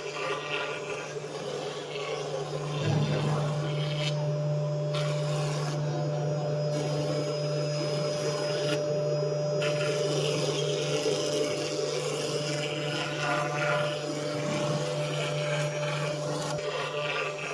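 5-axis CNC router engraving a mold: the spindle runs with a steady hum and a steady higher tone while the cutter works the material with a noisier, uneven sound.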